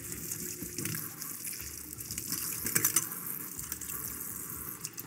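Kitchen tap running water into a sink in an even hiss, shut off near the end.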